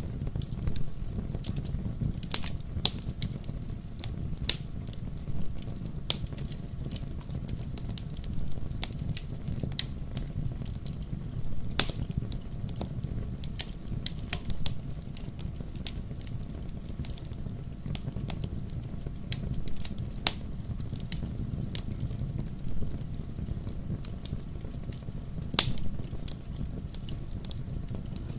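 Wood bonfire burning, with a steady low rumble of flames and irregular sharp pops and crackles of burning wood, several a second.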